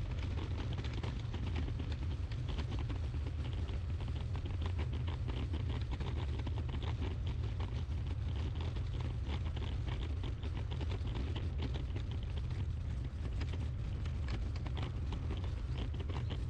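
Wind buffeting the microphone as a steady low rumble, with a dense crackly patter of small clicks running through it.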